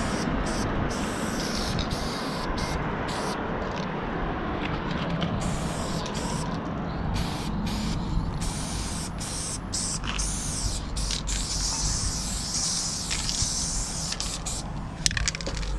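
Aerosol spray paint can hissing steadily as paint is sprayed onto a truck's side.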